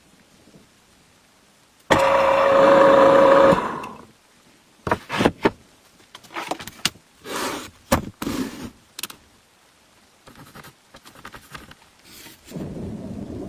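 An electric motor runs for about a second and a half with a steady hum, then dies away; a string of irregular knocks and scrapes follows, and a steady noise starts near the end.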